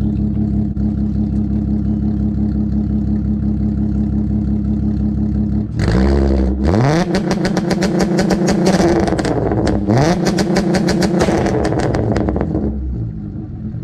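Mk4 GTI 24v VR6 engine, tuned and running through aftermarket downpipes and a cat-delete straight pipe with the stock resonator, idling and then revved at about six seconds up to its two-step launch limiter. It is held bouncing on the limiter with rapid exhaust pops and crackles, dips briefly and climbs again about ten seconds in, then drops back to idle near the end.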